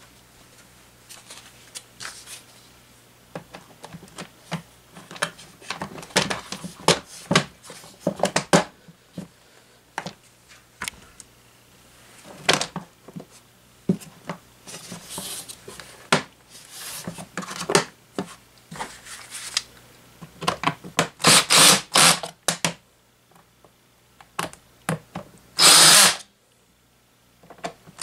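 Plastic clicks and knocks as the grille and housing of a Holmes twin window fan are fitted back together. Near the end a cordless drill-driver runs in short spurts, driving screws into the plastic housing.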